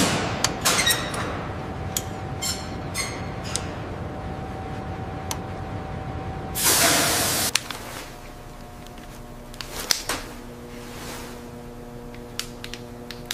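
Metallic clinks and taps of hose fittings being coupled over a steady machine hum, with a short loud hiss about six and a half seconds in, like pressure vented from a line.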